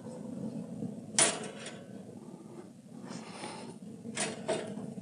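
Stainless steel rib stands knocking and clinking against the metal grill grates as they are set in and ribs are loaded. There is one sharp clank about a second in and two lighter knocks near the end, over a low steady hum.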